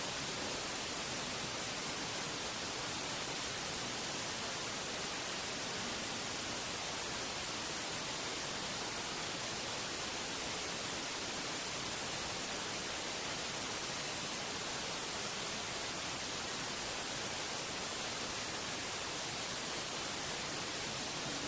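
Steady, even hiss, strongest in the high end, with no distinct sounds standing out from it.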